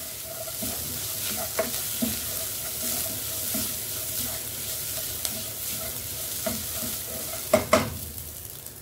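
Onion, crushed coconut and green chillies sizzling in hot oil in a nonstick pot while a spatula stirs and scrapes them around. There are a few louder scrapes near the end. This is the sauté stage, where the coconut cooks until it loses its raw taste.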